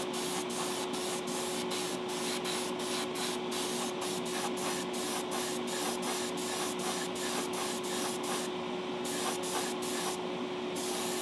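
Hobby spray booth's extraction fan running, a steady rush of air with a constant hum, while gloved hands rub and crinkle a wad of masking tape.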